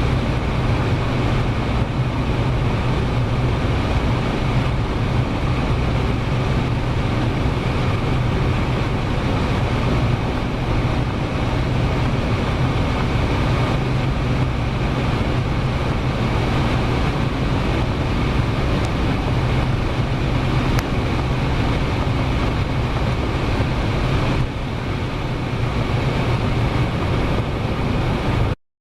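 Supercharged BMW M5 V10 of the G-Power Hurricane RR running at a steady cruise, a constant low engine drone with road and wind noise and no revving. It cuts off suddenly near the end.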